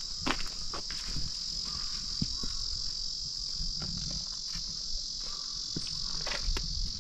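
Insects calling in a steady, continuous high-pitched trill that starts abruptly and stops just at the end, with a few soft clicks underneath.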